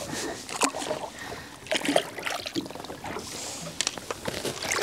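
Scattered knocks and handling bumps aboard a small boat as a thornback ray is put back over the side, over a steady hiss of wind and sea.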